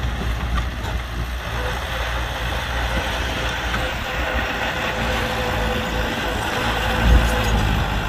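Diesel engine of heavy earthmoving machinery running steadily, with a brief louder surge about seven seconds in.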